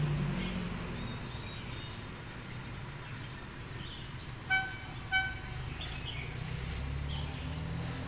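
Diesel locomotive horn giving two short toots about half a second apart, over the low rumble of a running diesel engine.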